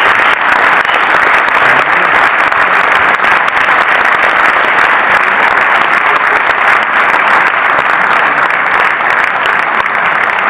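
Audience applauding steadily, a dense clapping that eases slightly near the end.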